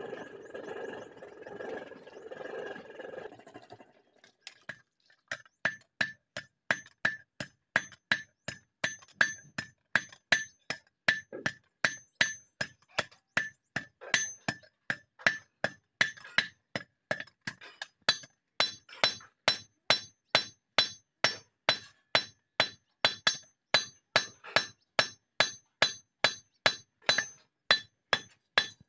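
Hand hammer striking a red-hot steel sickle blade on an anvil, about two blows a second, each with a bright metallic ring; the blows start about five seconds in, after a few seconds of steady whirring.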